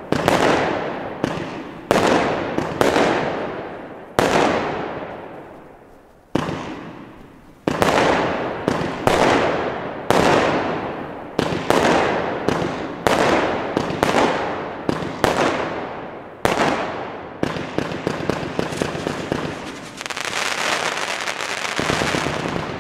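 Weco Pure Magic 135-shot compound firework cake firing shot after shot, about one bang a second, each report fading away before the next. Near the end the shots come thick enough to merge into a steady, continuous stretch.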